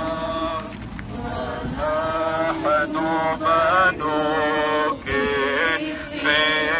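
Voices singing an Arabic hymn in unison, held notes stepping in pitch, with short breaks between phrases.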